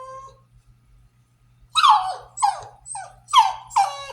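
French Bulldog puppy whining and talking back: a drawn-out whine trails off at the start, then after a pause comes a run of five short, whining yelps about half a second apart, each dropping in pitch.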